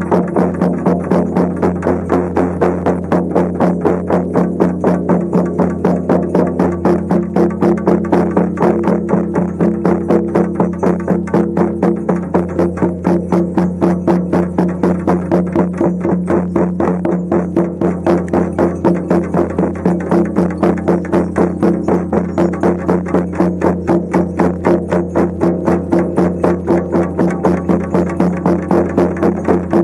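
Shamanic frame drums beaten together in a fast, even beat, over a steady low drone.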